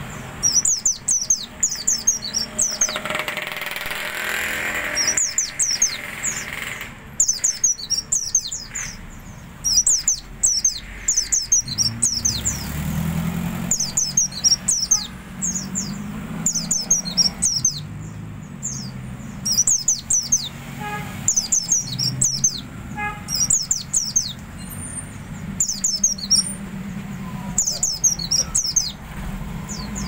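An omyokan, a small caged songbird, twittering in quick bursts of thin, high falling chirps, a new cluster every second or two. Motorbike traffic hums underneath, louder about halfway through.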